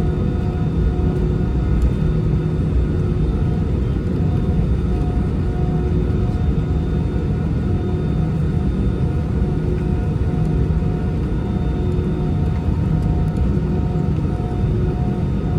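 Airbus A320 jet engines running, a steady deep rumble with a constant hum.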